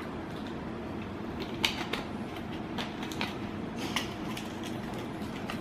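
Plastic water bottle being handled and its cap screwed back on: a few light clicks and crinkles over a steady low hum.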